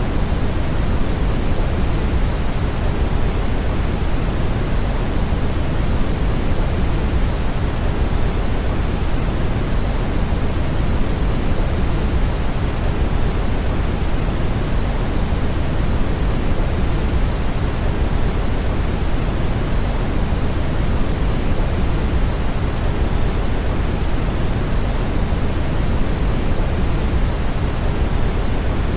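Steady brown noise: an even, unchanging rush, deepest at the bottom and thinning toward the top.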